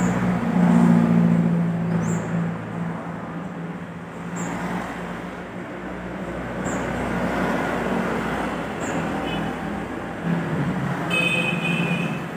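Street traffic: motorcycle engines passing on the road, the nearest one loudest about a second in, over a steady traffic hum. A short high-pitched tone sounds near the end.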